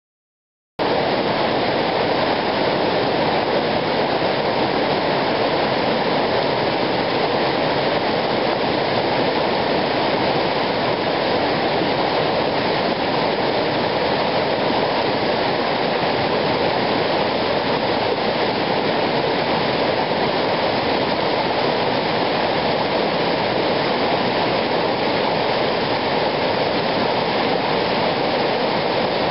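Whitewater rapids of Lynn Creek rushing over boulders: a steady, loud wash of water that starts abruptly about a second in.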